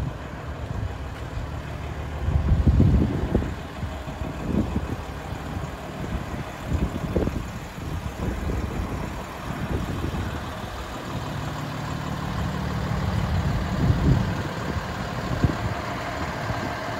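Cummins diesel engine of a fire pumper truck idling steadily. Gusts of wind buffet the microphone with low rumbles, loudest about three seconds in and again near the end.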